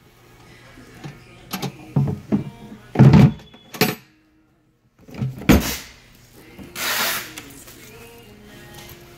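A series of irregular knocks and thuds, the loudest about three seconds in, then a second of dead silence and a short hissing burst near seven seconds, over a faint steady low hum.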